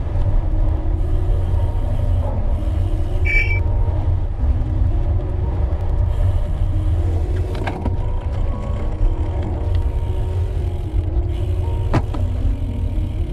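Heavy low wind rumble buffeting the microphone of a moving bicycle, with background music playing over it.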